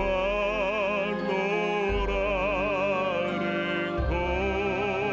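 A trained classical male voice singing a Korean ballad in operatic style into a microphone over a recorded instrumental accompaniment. He holds long notes with a wide vibrato, taking a new phrase about two seconds in and again about four seconds in.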